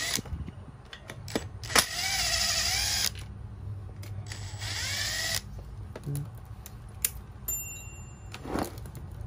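A small power driver whirring in two bursts of about a second each, its pitch bending as it works, while the muffler screws on a brush-cutter engine are undone. Sharp clicks and knocks of the engine and parts being handled come between the bursts.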